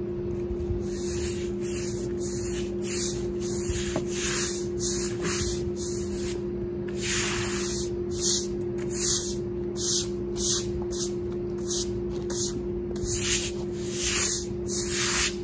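A stiff push broom scrubbing back and forth across the wet face of a freshly milled walnut slab, washing off the sawdust. It makes a steady run of swishing strokes, about one and a half a second. A steady low hum runs underneath.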